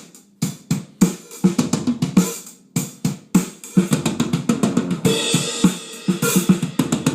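Acoustic drum kit played for a studio sound check: a beat on kick, snare and hi-hat with tom rolls worked in. It grows busier about four seconds in, and a cymbal wash comes up loud about five seconds in.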